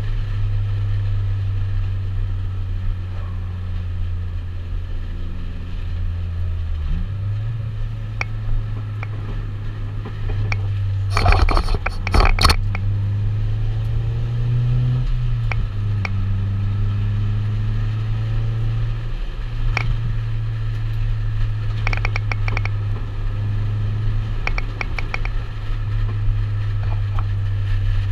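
Car engine running at speed heard from inside a stripped-out race car's cabin, its steady hum stepping in pitch a few times, with road noise under it. Bursts of sharp rattling clatter come about eleven seconds in and again around twenty-two seconds.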